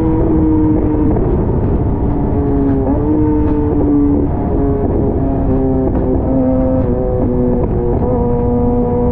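Kawasaki ZX-6R inline-four engine running at cruising speed, over a heavy rush of wind and wet-road noise. Its pitch holds fairly steady, then shifts up and down in small steps through the middle as the throttle changes, and settles again near the end.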